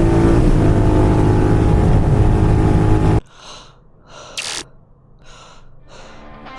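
Royal Enfield Continental GT 650's parallel-twin engine with a slip-on exhaust, running steadily under way with wind noise. It cuts off abruptly about three seconds in, leaving a quiet stretch with a few short breathy puffs.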